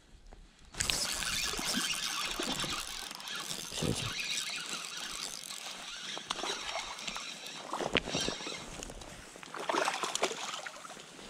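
A spinning reel being cranked while a hooked trout is played, with the fish splashing at the surface about ten seconds in.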